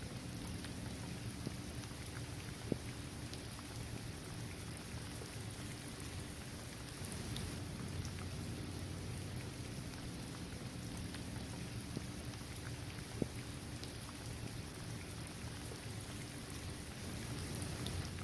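Steady rain falling on a basketball court, trees and grass, with scattered drop ticks and two louder single drips, about three seconds in and about thirteen seconds in.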